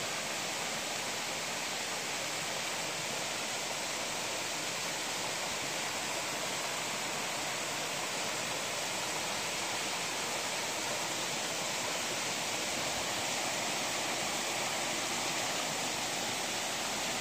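Small waterfall splashing steadily: thin streams spilling off a mossy rock ledge onto rocks and into a pool, an even rushing hiss.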